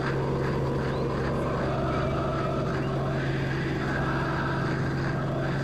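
Steady engine drone heard inside an aircraft cabin, a constant low hum over a broad rushing noise.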